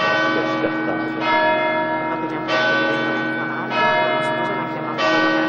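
A church bell tolling, struck about every second and a quarter, each stroke ringing on into the next.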